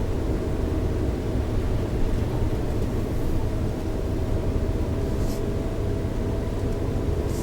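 Suzuki Jimny JB64 driving at a steady pace: a constant low rumble of its 660 cc turbo three-cylinder engine and tyres on the road.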